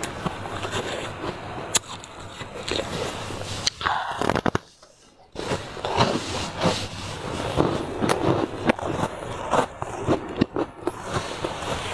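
Close-miked crunching and chewing of a block of ice, with many sharp cracks and crackles as it breaks between the teeth. The sound drops out for under a second a little before the middle.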